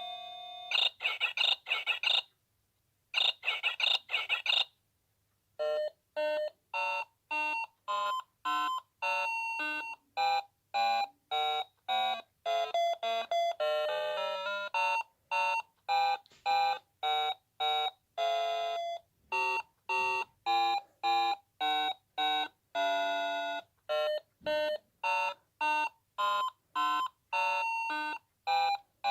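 Noah Precision Fruity Melody alarm clock's electronic sounder: a tune ends, two short bursts of rapid warbling beeps follow, and about five seconds in a new melody starts, played as separate staccato beep notes about two a second.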